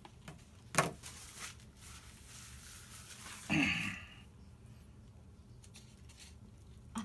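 Handling and eating chicken wings: a sharp knock about a second in, then rustling, and a brief louder sound just past halfway.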